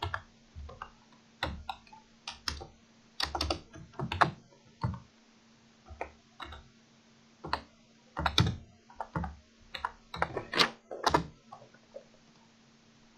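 Typing on a computer keyboard: irregular key presses in short runs with pauses, stopping about a second before the end.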